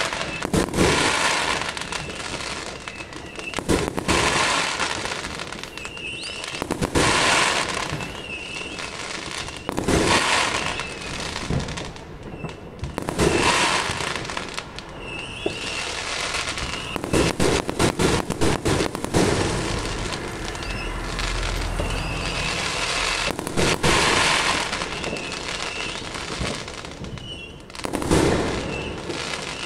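Many fireworks going off: a near-continuous run of bangs and crackling bursts, with louder clusters every few seconds.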